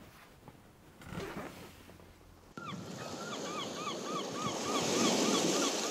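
Ocean surf sound effect that starts suddenly about two and a half seconds in and grows louder, with a quick, even series of short bird chirps, about three a second, over the waves. Before it comes faint room tone with a brief rustle.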